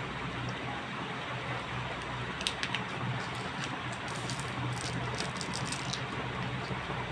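Small sharp clicks and light rustles of things being handled, scattered from about two and a half seconds in until near the end. Under them runs a steady low hum and hiss.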